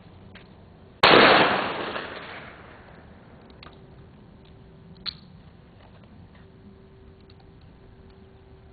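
A single shotgun shot about a second in, trailing off over about a second and a half, followed by a faint sharp click a few seconds later.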